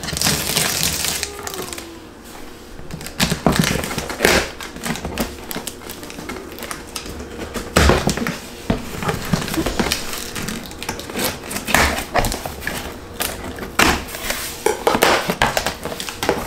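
Scissors slitting packing tape on a large cardboard box, with a bright hiss in the first second or so. Then the carton is handled and its flaps pulled open, giving a string of scrapes, knocks and cardboard rustles.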